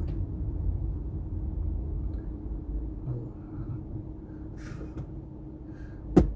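Low steady rumble of a car driving, heard from inside the cabin, with a faint steady hum. A single sharp click or knock sounds near the end.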